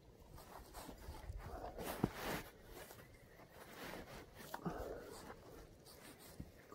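Soft rustling and breathing from a prone shooter settling behind a rifle, with one sharp click about two seconds in.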